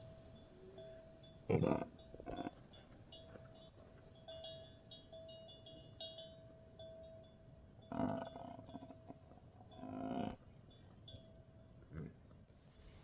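Small bells on livestock clinking and tinkling irregularly over a faint steady tone, with three louder, rougher sounds, one early on and two later.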